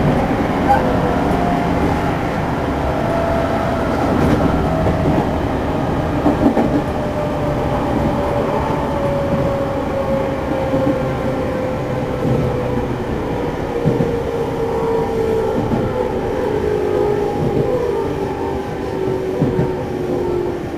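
Running sound inside a JR 211-series electric motor car: the traction motor's whine falls slowly and steadily in pitch over a steady rumble of wheels on rail, as the train slows. The car is known for unusually loud, abnormal motor noise.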